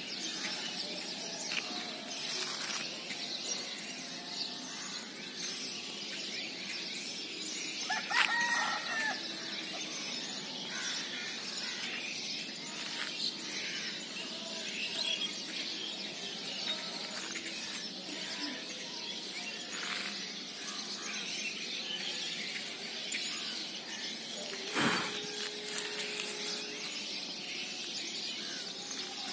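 Early-morning rural outdoor ambience: small birds chirping steadily, and a rooster crowing once about eight seconds in. Near the end comes a sharp thump followed by a short steady tone.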